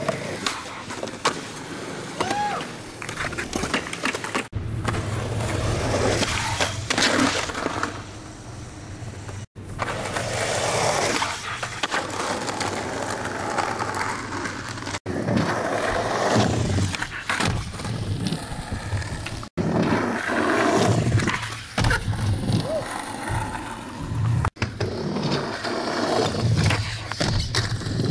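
Skateboard wheels rolling over concrete with the sharp clacks of board pops and landings, in several short takes that cut off abruptly every few seconds.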